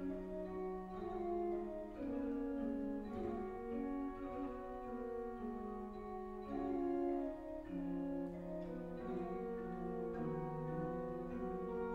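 Slow instrumental music: sustained melodic notes, the melody moving to a new note every second or so.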